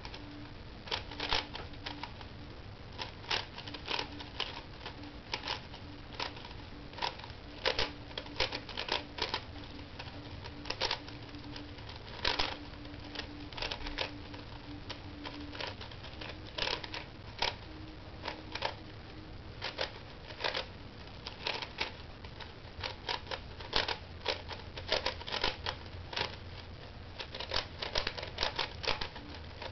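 A QJ tiled 4x4 puzzle cube being turned fast during a solve: rapid, irregular clicks and clacks of the plastic layers, often in quick clusters of several turns.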